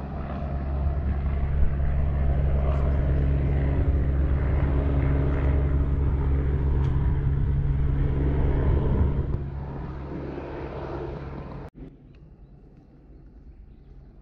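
An engine running with a steady low drone, strong for most of the stretch, then fading away after about nine seconds.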